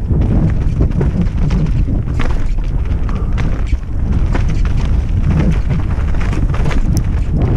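Wind buffeting a helmet-mounted camera during a fast mountain-bike descent, a steady low rumble with frequent rattling knocks as the tyres run over the wet dirt trail and roots.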